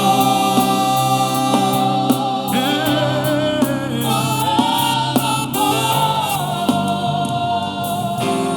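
Live gospel worship song: a choir and congregation singing long held notes over instrumental accompaniment with a steady beat.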